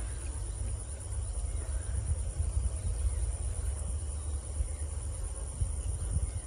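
Steady high-pitched insect chirring, like crickets, over a low steady rumble.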